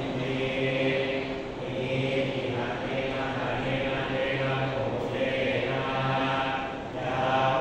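Thai Buddhist monks chanting together in Pali in a low, steady monotone, the consecration (pluk sek) chant for blessing amulets.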